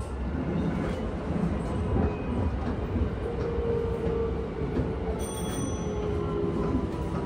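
Keisei 3000 series electric train heard from inside the car as it slows into a station: steady wheel-and-rail rumble under a faint Toyo IGBT-VVVF inverter whine that slowly falls in pitch, with a brief high squeal about five seconds in.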